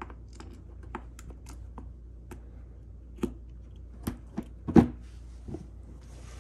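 Irregular small plastic clicks and taps as a fuel selector knob is pushed onto its valve stem in a generator's plastic side panel. The loudest knock comes about three-quarters of the way in.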